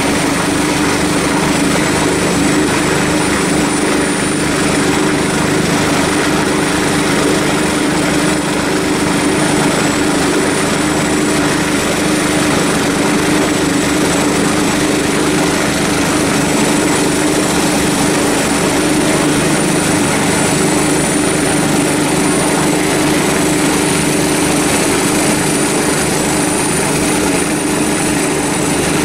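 Helicopter running on the ground, its turbine giving a steady whine over a fast, even beat of the rotor blades.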